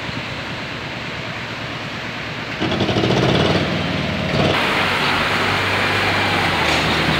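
Street traffic with a motor vehicle's engine running close by, growing louder a few seconds in. Near the middle it gives way to the steady rushing splash of water spilling down a cascade fountain.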